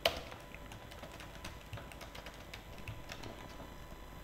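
Computer keyboard being typed on: a string of quiet, irregular key clicks, with a louder click at the very start.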